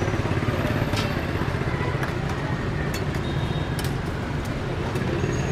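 Steady rumble of passing motorbike traffic, with a few sharp clinks of metal utensils and bowls spread through it.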